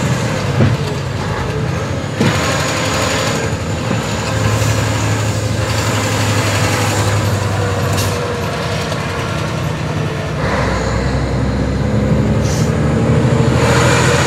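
Heavy truck's diesel engine running while driving, heard from inside the cab with the truck laden with rocks. The engine note shifts a couple of times, about four and a half and ten and a half seconds in, with a few short knocks along the way.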